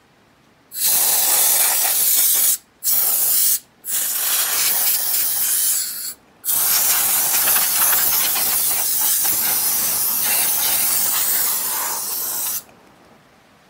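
Canned air duster spraying in four blasts of loud, steady hiss, blowing dust out of the inside of an integrated amplifier; three short breaks split it, and the last blast runs about six seconds.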